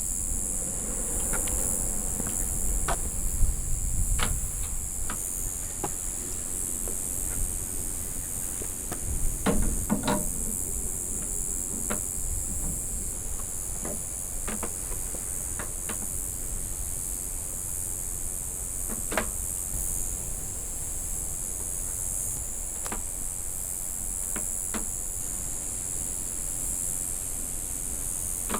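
Night insects, crickets among them, chirring steadily in a high-pitched drone, over a low rumble of wind. A scattered handful of short clicks and knocks, with a small cluster about ten seconds in.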